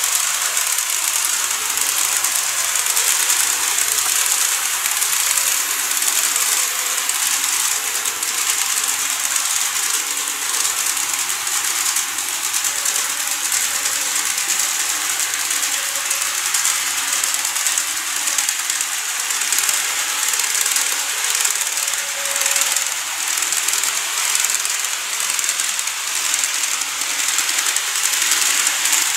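TOMIX 103-series model electric train running on plastic viaduct track: a steady, high-pitched rattling whir from its motor and wheels on the rails.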